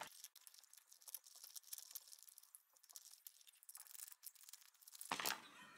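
Faint, sparse clicks and scrapes of a fork stirring black-bean natto in a plastic tray, with a brief louder rustle about five seconds in.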